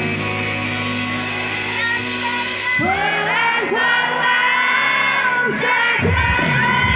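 Live rock band playing held, steady chords with electric guitar. About three seconds in, a woman's singing voice comes in over the band.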